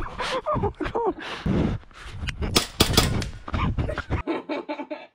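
A toy pistol firing an irregular string of sharp snaps, mixed with laughing voices.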